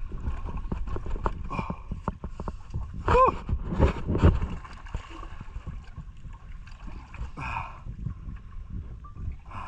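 Sea water sloshing and splashing at the surface around a swimming diver and his catch, with irregular knocks and slaps, the loudest about three to four seconds in.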